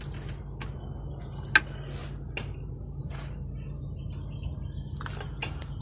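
Sharp metallic clicks and clinks of hand tools working on metal engine parts, scattered irregularly, with one louder click about a second and a half in. A steady low hum runs underneath.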